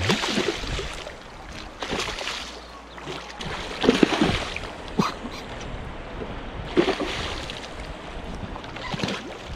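A hooked male pink salmon thrashing at the surface beside a boat, splashing the water in about half a dozen bursts a second or two apart.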